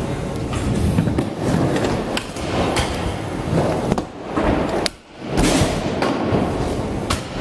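Stunt scooters rolling over skatepark ramps: a steady rolling noise broken by several sharp clacks of decks and wheels striking the ramp surface.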